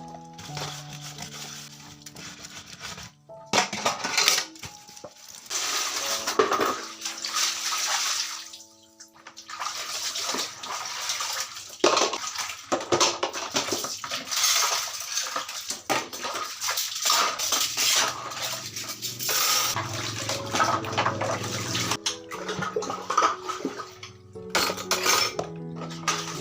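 Running water splashing in long stretches, with occasional clinks of dishes, over soft background music.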